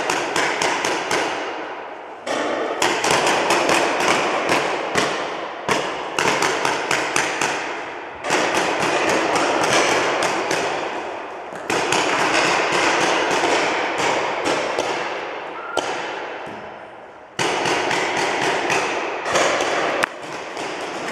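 Paintball markers firing in rapid volleys, many sharp shots a second, echoing through a large indoor hall. The firing starts afresh in a sudden loud burst several times.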